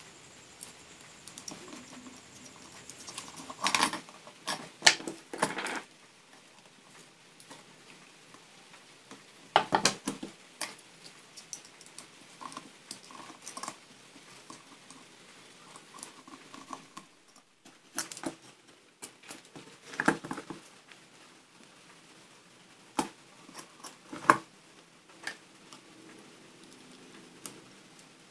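Scattered clicks, taps and scrapes of a plastic lamp holder, wires and a tester screwdriver being handled while the holder is wired up, with small clusters of sharper clicks about 4, 10, 20 and 24 seconds in.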